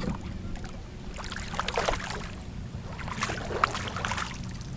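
Hooked white bass splashing at the water's surface as it is reeled in beside the boat, a few short splashes about two seconds and three and a half seconds in, over a steady low hum.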